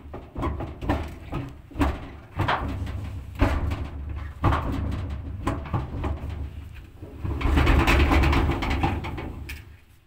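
Irregular scraping, rubbing and knocks from a hand working inside the stainless steel drum of a commercial LG clothes dryer, with a longer, louder scrape near the end.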